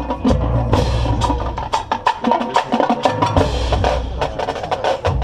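Marching band playing: a dense run of sharp drum and percussion strikes over held pitched notes, with stretches of sustained low notes.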